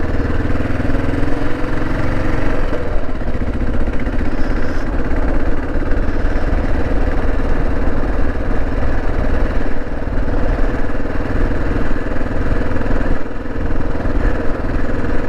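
Kawasaki KLR 650's single-cylinder four-stroke engine running steadily.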